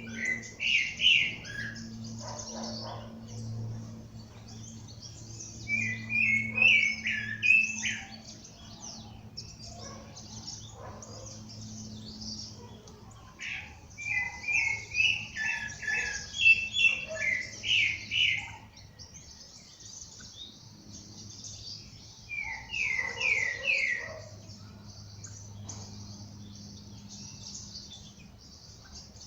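Several birds singing at dawn: one bird repeats a loud phrase of quick, short notes four times, over constant high twittering from other birds. A faint steady low hum runs underneath.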